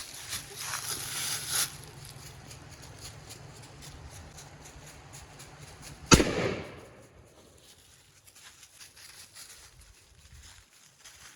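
A single gunshot about six seconds in, sharp and loud, with its report ringing out and dying away over about a second. Before it, rustling.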